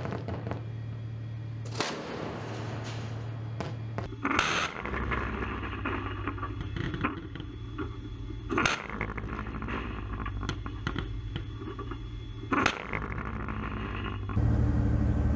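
Warship's deck gun firing single rounds at sea: four sharp reports a few seconds apart, over a steady low hum.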